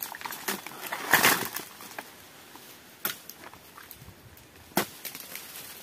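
Pole-mounted sickle hooking and cutting at an oil palm's fronds: a few sharp clicks and knocks, with a louder rustling swish about a second in.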